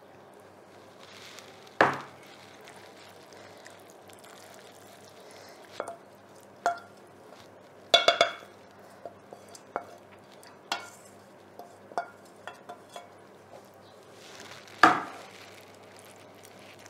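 A utensil scraping sauce out of a stainless steel frying pan and stirring it through fettuccine in a glass bowl: scattered clinks and knocks against pan and bowl, with a ringing metallic knock about eight seconds in.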